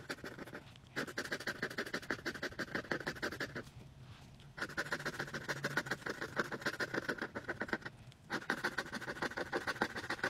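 A scratch-off lottery ticket being scratched, its coating scraped away in rapid back-and-forth strokes. The scratching comes in runs of a few seconds with short pauses between them, the longest pause about four seconds in.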